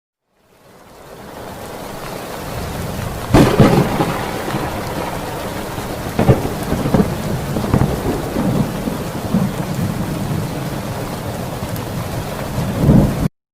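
Thunderstorm sound effect: steady rain fading in, a loud thunderclap about three seconds in, and further peals of thunder later. It cuts off abruptly near the end.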